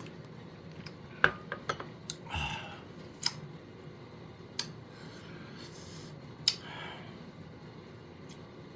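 Scattered light clinks and clicks of kitchenware: about seven sharp separate ones, the loudest just over a second in, with a few short rustling scrapes between them.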